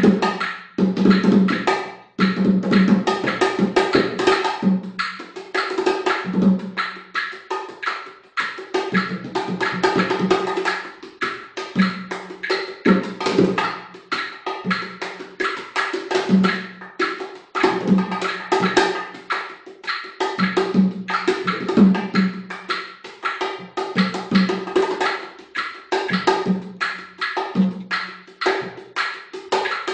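Bongó drums played by hand in a fast improvised descarga: dense, rapid finger and palm strokes, with the two drums ringing out at a low and a higher pitch. Sharp clicks from small handheld percussion keep time alongside.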